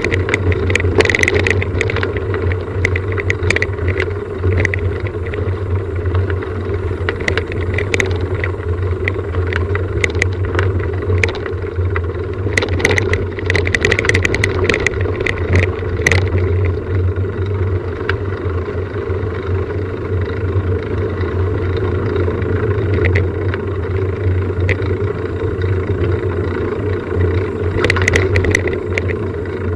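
A steady, engine-like hum, like a vehicle running, with scattered light clicks and rattles that come thickest in the first half and again near the end.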